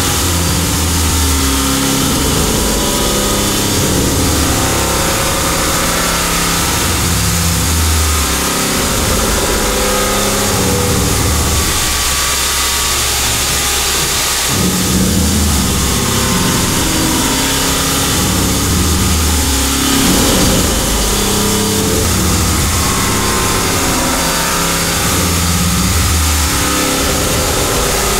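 Ibarmia 5-axis machining centre milling a 4140 steel part: spindle and cutting noise that changes pitch abruptly every second or two as the cuts follow one another.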